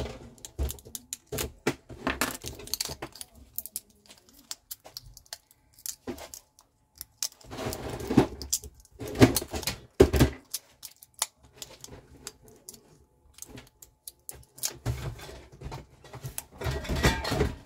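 Car remote key fob and keys being handled: irregular small plastic clicks, knocks and metal key jingles, busiest about eight to ten seconds in and again near the end.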